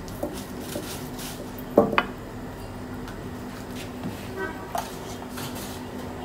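Two sharp knocks close together about two seconds in, as a wooden rolling pin is set down on a granite counter, then faint handling sounds over a steady low hum.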